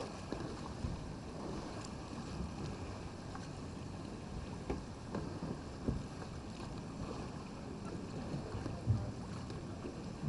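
River water rushing and splashing around a kayak among rocks, a steady wash, with a few short knocks and splashes scattered through it.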